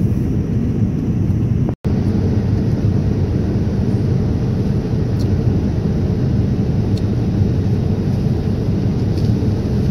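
Steady cabin noise of a jet airliner in flight: a constant low rush of engines and airflow. The sound cuts out for an instant just under two seconds in.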